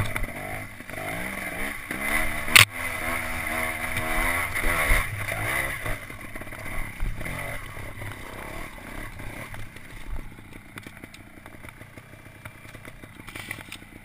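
Trials motorcycle engine revving in low gear, climbing and dropping in pitch over the first six seconds with one sharp knock about two and a half seconds in, then running quieter at low revs.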